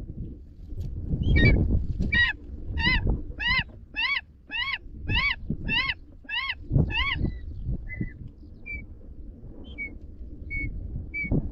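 Eagle calling: a fast run of about ten ringing notes, each rising and falling in pitch, then a few short, fainter single notes. A low rumble of wind or handling noise runs underneath.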